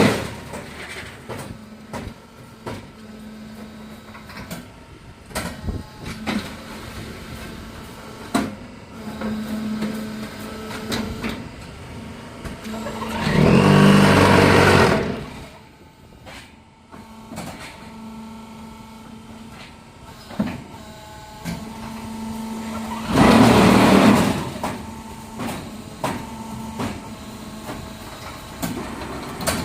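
QTJ6-15 concrete block making machine running through its cycle: a steady hum with scattered clunks and knocks, broken by loud vibrating buzzes of about two seconds each. One buzz dies away just after the start, another comes about halfway, and a third about ten seconds later. The buzzes are the vibration stage that compacts the concrete in the mould.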